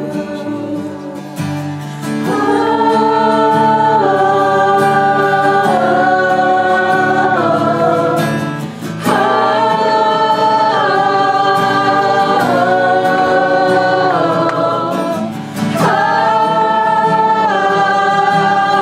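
Worship music: slow singing in long held notes, in three phrases that each begin after a brief dip, over a steady low accompaniment.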